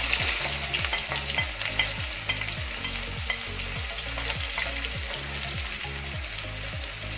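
Chopped onions sizzling and crackling as they fry in hot oil in a kadai, with a wooden spatula scraping and stirring them in the pan. Underneath runs a low repeating pulse, about two a second.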